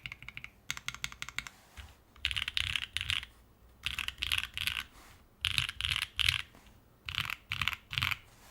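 Typing on a custom 60% mechanical keyboard with an O-ring mount, aluminium plate and lubed, filmed Sacramento switches: a quick run of key clicks for about the first second and a half, then four groups of about three louder strokes, each group spaced about a second and a half apart.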